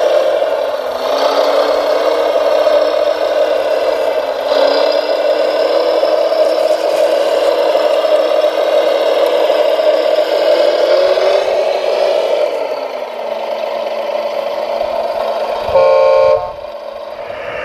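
Radio-controlled model Volvo L250G wheel loader working its bucket: a steady motor and hydraulic whine whose pitch creeps up slowly, then drops about two-thirds of the way through. Near the end a short, loud horn beep sounds.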